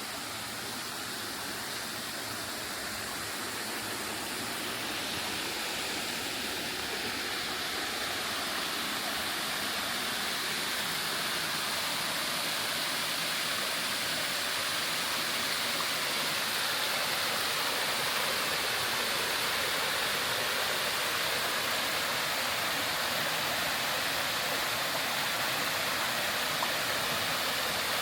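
Waterfall: a steady rush of falling water that grows gradually louder over the first half.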